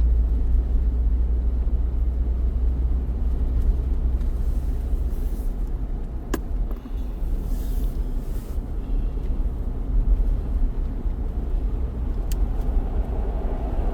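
Steady low rumble of a car's engine and tyres heard from inside the moving car, with two faint clicks about six and twelve seconds in.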